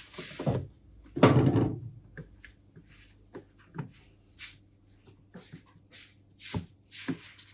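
Metal clicks and knocks as a flywheel is worked over the starter clutch rollers and onto the crankshaft key of a Yamaha TTR230 engine, with one louder clunk a little over a second in.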